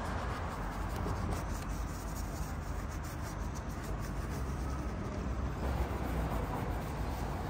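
Steady rubbing of fabric wiping over motorcycle bodywork during detailing.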